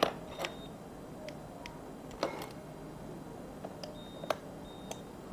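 Three short, high electronic beeps from a scooter's smart-key system as a remote is tried: one about half a second in and two near the end. They come among several sharp clicks and taps of handling.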